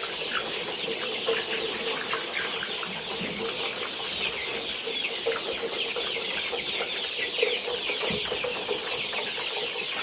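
A large flock of seven-week-old chickens peeping and cheeping all together in a continuous, dense chorus of short falling chirps.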